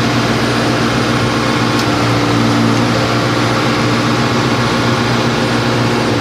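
Engine of an underground cable-drilling machine running steadily at a constant speed.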